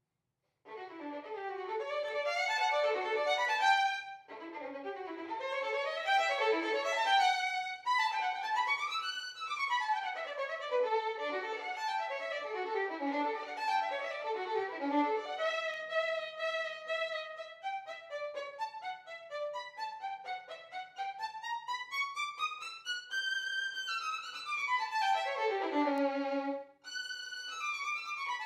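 Solo violin playing fast running scales and arpeggios that sweep up and down, with a few longer held notes. It starts about half a second in and has brief breaks about four seconds in and near the end.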